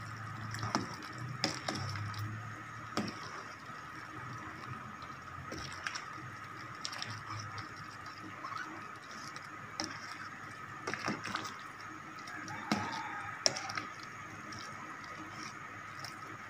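A metal ladle stirring a pot of soup: liquid sloshing, with scattered short clinks and knocks of the ladle against the stainless steel pot.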